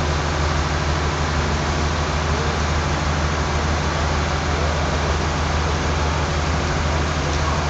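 A steady low engine hum under an even hiss.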